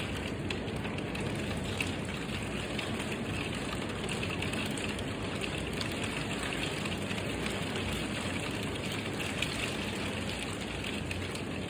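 Steady rain falling and spattering on surfaces, an even hiss that holds at one level throughout.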